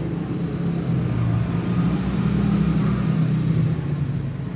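Domestic cat purring loudly and steadily while being stroked: a deep, rapidly pulsing rumble.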